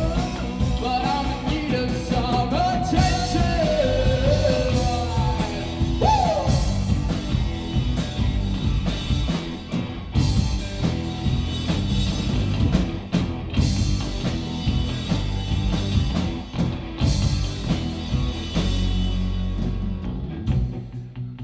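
Live rock band playing loud: electric guitar, bass guitar and drum kit, with a high line that slides up and down in pitch over the first few seconds. Near the end the cymbals fade out and the level drops, leaving low held bass and guitar notes.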